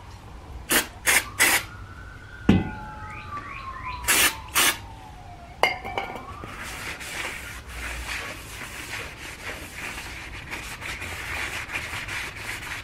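Short bursts of aerosol brake cleaner being sprayed, three in quick succession about a second in and two more near four seconds, with a thump between them, to strip the factory grease off a new brake rotor. A siren wails up and down in the background through the first half, and a longer scratchy hiss with small clicks fills the second half.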